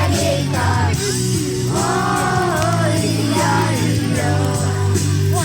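Music: a rock song with a singing voice drawing out long, wavering notes over a steady bass line.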